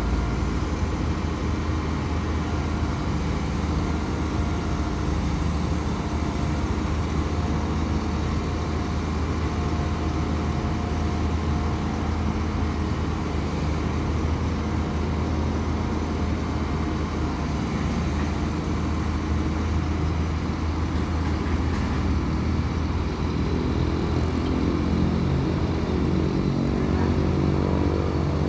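Diesel engines of SANY hydraulic excavators running steadily under load as the machines lift a wooden cabin, a deep continuous engine drone. The engine note grows stronger and a little louder near the end.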